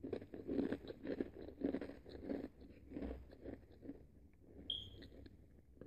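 A person chewing a mini Belgian waffle snack close to the microphone, a steady crunching rhythm of about two or three chews a second that grows fainter after about four seconds.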